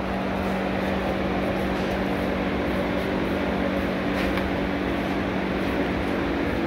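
Steady mechanical hum with a constant low drone.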